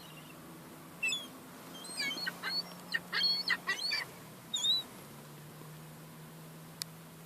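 Young gulls calling, a quick run of high-pitched squealing cries between about one and five seconds in, several overlapping near the middle.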